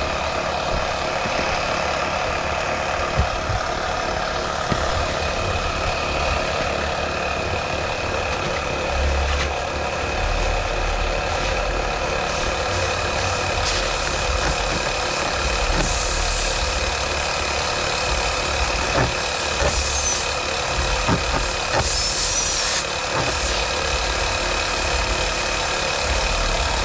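Portable air compressor running steadily to reinflate a punctured tyre, with short hisses three times in the second half.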